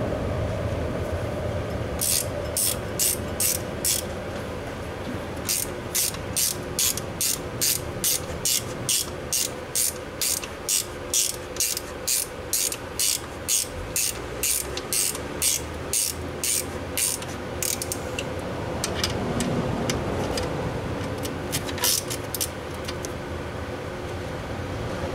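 Hand ratchet clicking in repeated back-strokes, about two a second, as a compressor mounting bolt is run down. A short run starts about two seconds in, a long steady run follows after a brief pause, and a few more strokes come near the end.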